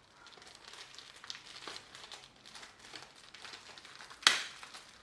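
Plastic shrink-wrap on a GoPro box being crinkled and peeled off by hand, with one loud sharp snap a little over four seconds in.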